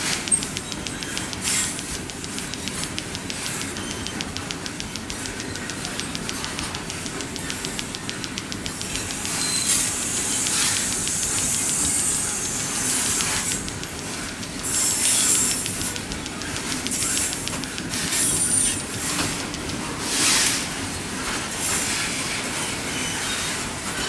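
Long freight train's wagons rolling past on steel wheels, with a steady rumbling clatter and rapid ticking from the wheels on the rails. From about ten seconds in there are repeated short bursts of high-pitched wheel squeal.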